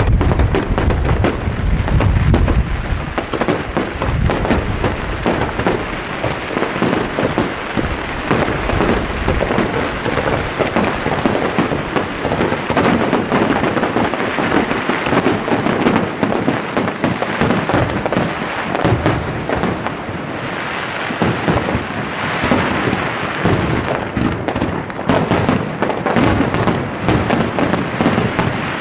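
Fireworks finale barrage: many shells bursting in quick succession, with heavy booms in the first few seconds, then a dense, continuous crackling of bursts.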